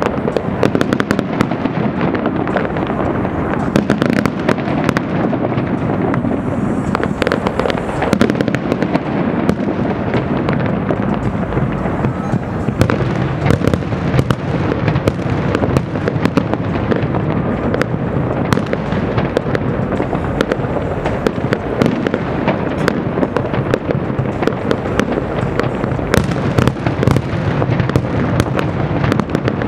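Aerial fireworks bursting in a continuous display: a dense, rapid stream of pops and cracks, without a pause.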